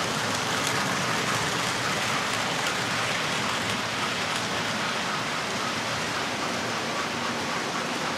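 Several model trains running at once on a model railway layout: a steady rushing rattle of metal wheels on the track with a faint motor whine and an occasional light tick.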